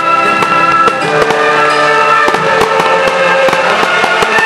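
Fireworks bursting in a rapid, irregular run of sharp bangs, over orchestral film music with long held notes.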